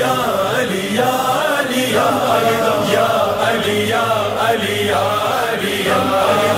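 A group of voices chanting a devotional refrain together, the chant swelling and falling about once a second.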